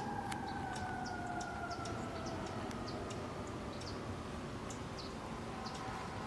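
A siren wailing on one long, slowly falling note that fades out, with short high chirps scattered over it.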